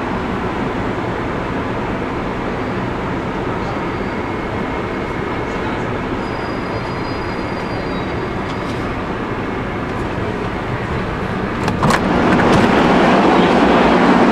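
Madrid Metro train heard from inside the carriage, running with a steady mechanical noise and faint squeals. About twelve seconds in, a sharp click is followed by a sudden step up to a louder, noisier sound.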